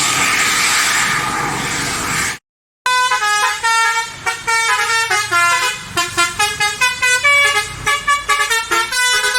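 A loud steady din with faint horn tones in it, cut off abruptly; after a brief silence a telolet bus horn, a set of musical air horns, plays a fast tune of short notes stepping up and down in pitch.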